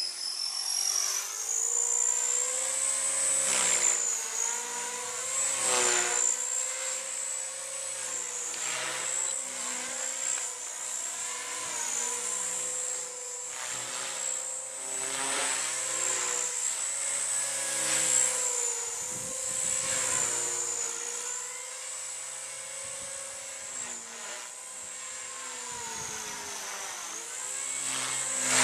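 Radio-control model helicopter in flight: a steady high-pitched motor and rotor whine that rises in pitch at the start, then wavers up and down with the throttle.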